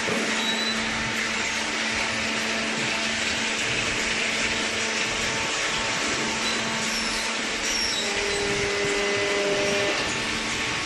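Hydraulic cardboard baler running: a steady motor-and-pump whir with a constant low hum, joined by a second, higher tone from about eight to ten seconds in.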